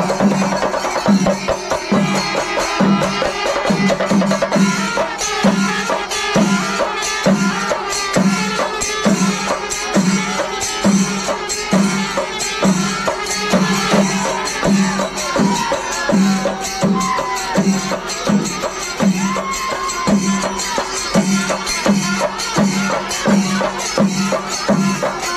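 Kerala temple percussion ensemble playing: a steady low drum beat, about four strokes every three seconds, under dense clattering cymbals and rapid drumming, with a few held higher notes near the middle.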